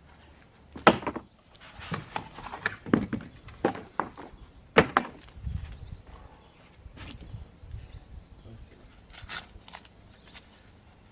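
Handling noise from unpacking a new mountain bike: a run of sharp knocks and clicks with rustling between them, busiest in the first half and fainter toward the end.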